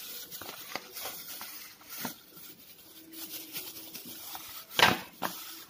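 Hands kneading a soft unleavened flour-and-oil dough in a bowl: quiet sticky squishes and light taps, with one louder thump near the end.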